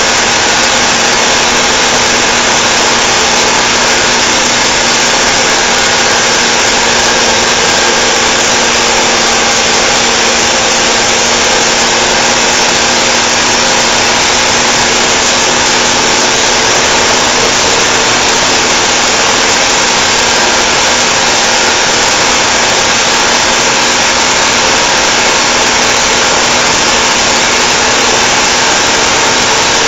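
Mercedes-Benz 911 timber truck's diesel engine running steadily as the truck drives along: a loud, even drone with a steady hum that holds one pitch throughout.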